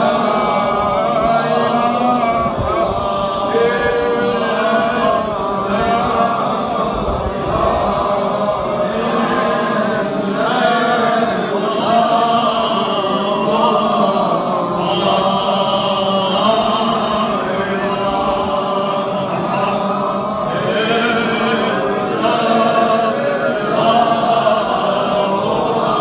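Many men's voices chanting together in unison, a continuous devotional chant, sustained without a break.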